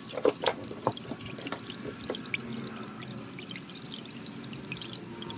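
Soft background music with a tinkling, drip-like texture and a few held notes. There are a few sharper clicks in the first second.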